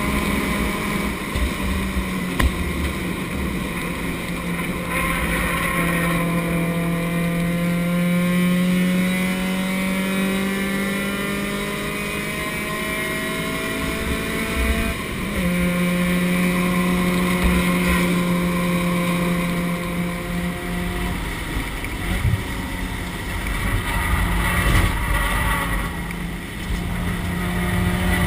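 Chumpcar race car's engine heard from inside the stripped cockpit at racing speed, with road and wind noise. The engine note climbs slowly for about ten seconds, breaks and drops about fifteen seconds in, then runs at a steady pitch, with heavier low rumbling near the end.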